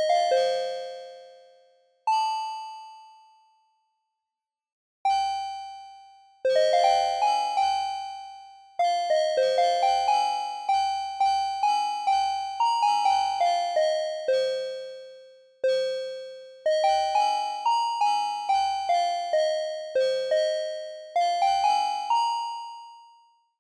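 Reason Subtractor software synthesizer playing a bell-like patch: a melody of struck notes that ring and fade away. Two lone notes open it, and a busier phrase follows with a short low thump under some of the notes.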